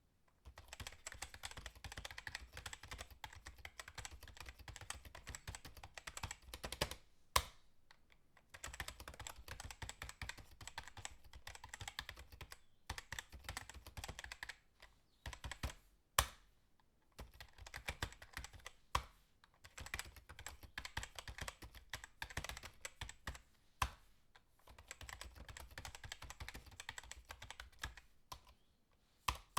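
Fast typing on a computer keyboard: runs of rapid key clicks broken by short pauses, with a few single, louder key strikes.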